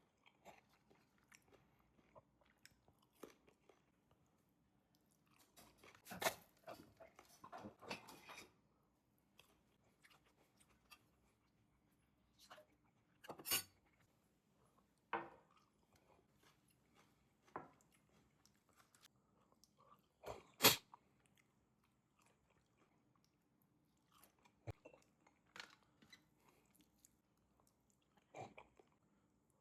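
A person eating chilli chicken: quiet chewing broken by scattered crunchy bites. There is a cluster of crunches about six to eight seconds in and a sharp, loudest one about twenty seconds in.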